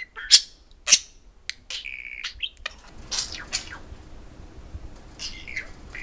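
Budgerigars chirping: two sharp chirps in the first second, a short held whistled note about two seconds in, then softer chirps and chatter.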